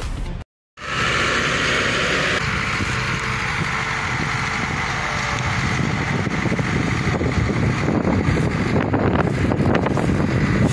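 Engines of a sugarcane loader and a loaded Kenworth cane truck running steadily in the field, starting just under a second in after a short gap.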